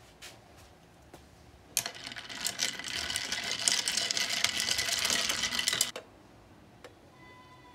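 A long metal spoon stirring ice cubes in a glass mason-jar mug of iced coffee: rapid clinking and rattling that starts about two seconds in, lasts about four seconds and stops abruptly.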